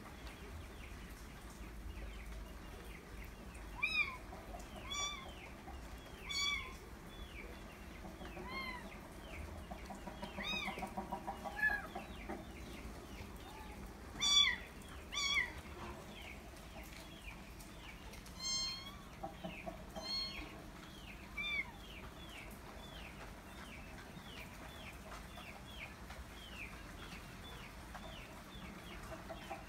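A kitten meowing now and then, the loudest calls about 4 and 14 seconds in. Around it, chicks peep in quick high chirps, and a hen gives a short run of clucks about 10 seconds in.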